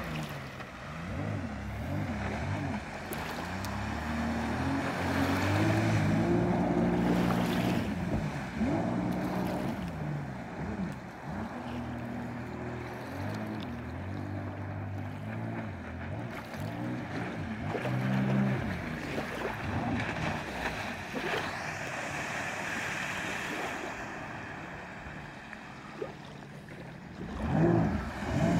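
Jet ski engine running at speed across the water, its pitch rising and falling again and again, over the hiss of spray. It grows louder near the end as the craft comes close.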